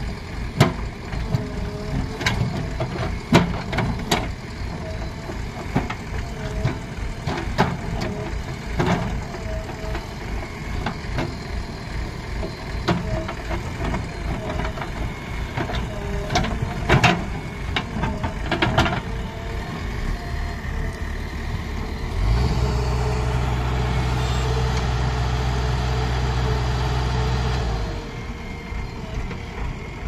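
JCB 3DX backhoe loader's diesel engine running as it digs with the rear backhoe bucket, with repeated sharp clanks from the bucket and boom linkage. About two-thirds of the way through, the engine settles into a steadier, louder drone for about five seconds, then drops back.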